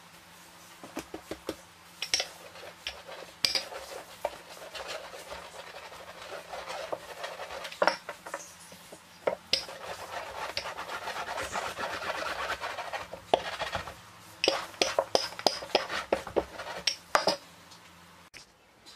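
A thin rolling pin rolling baklava dough into a sheet on a starch-dusted wooden board. It makes a run of rubbing sounds through the middle, with scattered sharp knocks and clicks before and after.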